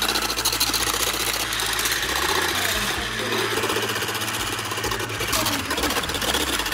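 Electric whisk running steadily, its motor whirring as the wire balloon whisk beats egg whites in a ceramic bowl, the wires rattling rapidly against the bowl. The egg whites are still only part-whipped.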